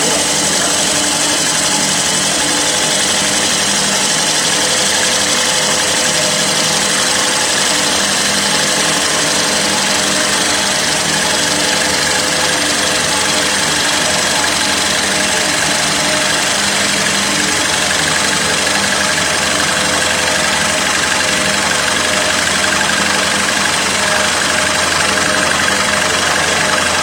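CNC wood lathe running steadily while turning a large wooden bowl: a constant motor hum under an even hiss.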